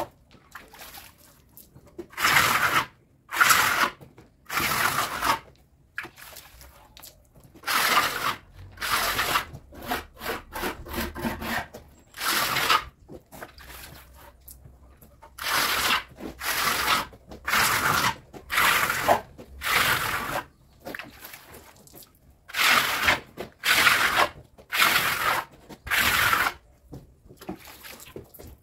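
A hand tool rubbing and scraping over a cement-rendered wall in repeated strokes, each about half a second long and about one a second, with a couple of short pauses.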